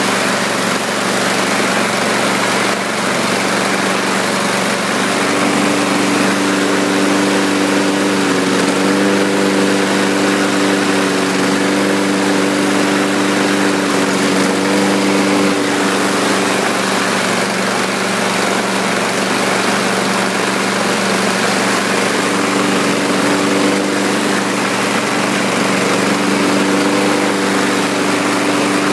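Briggs & Stratton 675EXi single-cylinder engine on a Husqvarna LC221A AWD walk-behind mower, running at a steady speed.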